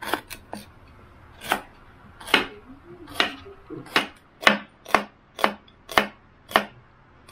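Kitchen knife slicing shallots on a cutting board: about a dozen sharp chops, spaced irregularly and coming closer together toward the end.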